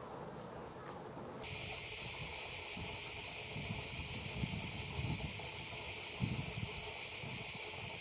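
A loud, steady, high-pitched insect drone with no break in it starts abruptly about a second and a half in and holds.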